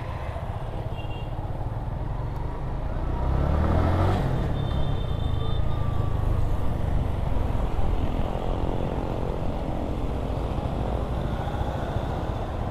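Motorcycle engine running while riding in traffic, over steady low road and wind rumble. About three seconds in, the engine rises in pitch as the bike accelerates.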